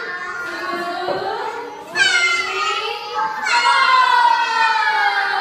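A group of young children singing together in unison, with two long drawn-out notes starting about two seconds in and just past halfway.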